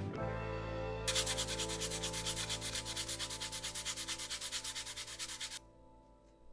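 Leather flesh side being burnished by rapid back-and-forth rubbing with a hand tool after a white finishing paste has been spread on it: an even run of scratchy rubbing strokes, about nine or ten a second, starting about a second in and stopping abruptly near five and a half seconds.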